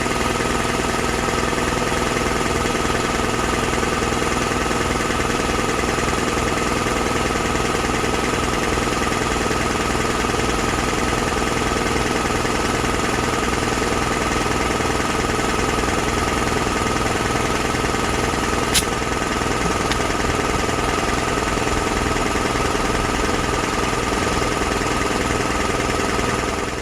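A motor-driven machine runs steadily at constant speed with a fast, even low pulse throughout, and a single sharp click about two-thirds of the way through.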